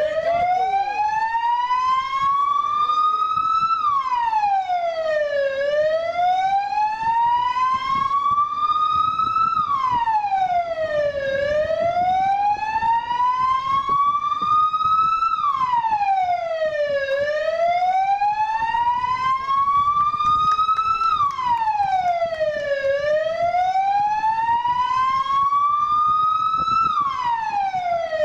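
Vehicle siren wailing: each cycle climbs slowly in pitch for about four seconds and then drops quickly, five times over, steady and loud.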